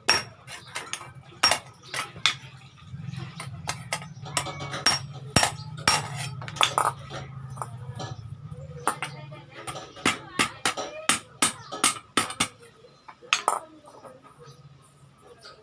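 Irregular hammer strikes and metallic clinks on iron as a blacksmith shapes an incense burner, dozens of sharp hits spaced unevenly, some several in quick succession. A low hum runs under the strikes from about three seconds in to about nine and a half.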